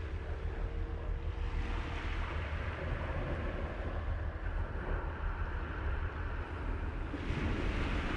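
Wind buffeting the microphone with a steady low rumble, over the hiss of small waves washing onto the beach. A wave breaks and washes in more loudly about seven seconds in. A faint steady hum, like a distant boat engine, sits under it for the first couple of seconds.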